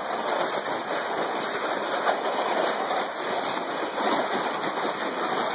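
Plastic sled sliding over wet, slushy snow as it is pulled along on a rope: a steady scraping hiss.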